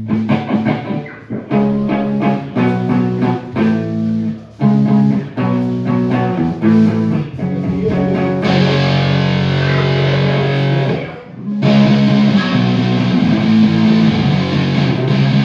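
Electric guitar played alone through an amp: stop-start picked riffing with short gaps, then about eight seconds in a thicker distorted sound held for a few seconds. It breaks off briefly and the distorted playing starts again.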